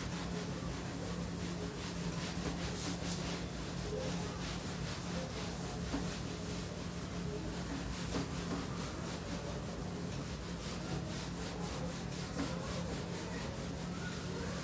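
Cloth duster wiping marker writing off a whiteboard, in repeated back-and-forth rubbing strokes, over a steady low hum.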